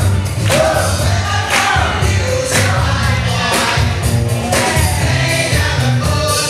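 Loud music from the DJ's speakers, with a steady beat of drum hits about once a second, a heavy bass line and singing.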